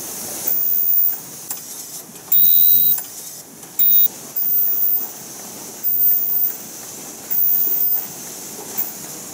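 Paper cup forming machinery running, with short loud bursts that start and stop sharply every second or so.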